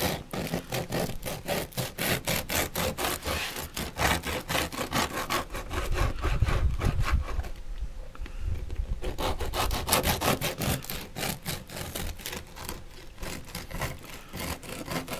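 Knife sawing back and forth through a crusty loaf of freshly baked beer bread on a plastic cutting board: quick, even rasping strokes, several a second, with a short break a little past halfway.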